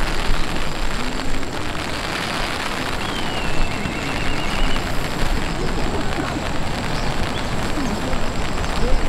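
Steady rain falling, an even hiss with no let-up. About three seconds in, a faint high trill runs for under two seconds.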